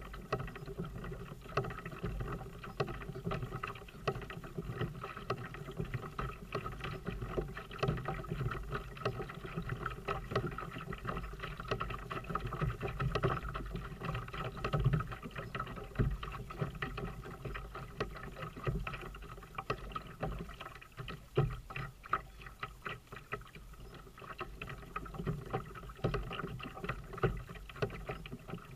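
Small waves lapping against a plastic kayak hull, with many small irregular knocks and splashes.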